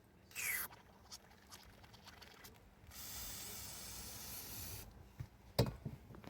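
Aerosol can spraying onto the tapped hole: a short spurt, then a steady hiss of about two seconds. A sharp metallic knock comes near the end.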